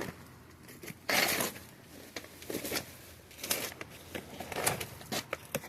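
A potato container being tipped out, with soil and hay spilling and rustling onto the ground in several crunchy bursts; the biggest spill comes about a second in.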